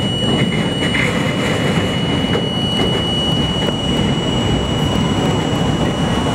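A New York City Subway train running along the track over a steel truss bridge, its wheels on the rails making a steady heavy rumble. A thin steady high tone sits above the rumble.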